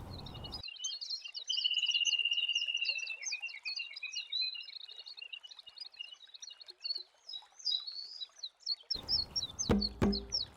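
Several birds singing, a busy mix of quick chirps and twitters with one steady trill a second and a half in, the loudest part. Near the end a low background rumble comes back with two sharp knocks.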